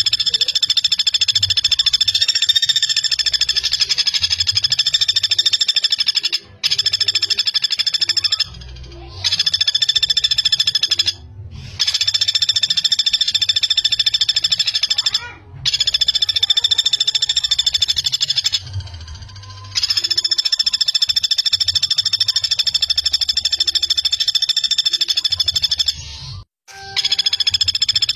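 Common flameback woodpecker giving long, fast rattling trills on a steady pitch, about six runs one after another with short breaks between them.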